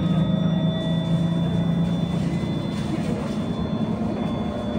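Cabin noise of a moving electric bus: a steady low hum of motor and road, with a few faint, steady, high whining tones from the electric drive.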